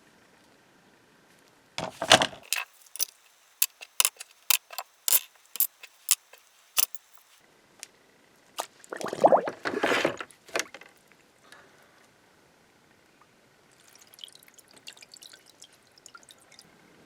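Liquid being poured or splashed in two noisy bursts, with a run of sharp clinks, about two a second, between them and faint crackling near the end.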